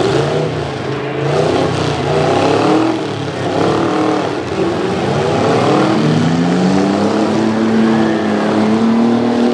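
Several demolition-derby half-ton pickup trucks' engines revving hard together, their pitches rising and falling as the trucks shove against each other; about six seconds in, one engine climbs and holds a high steady pitch.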